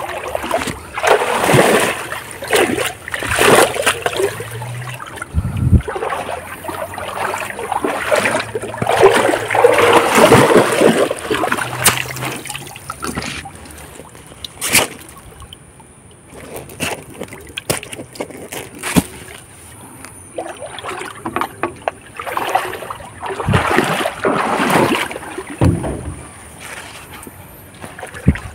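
River water splashing and sloshing in uneven surges as someone wades and scoops through the shallows searching for shrimp, with a few sharp knocks now and then.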